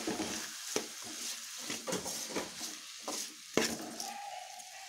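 A spatula scraping and stirring chopped capsicum, onion and tomato frying in oil in a metal kadai, over a steady sizzle. The scrapes come about two to three a second.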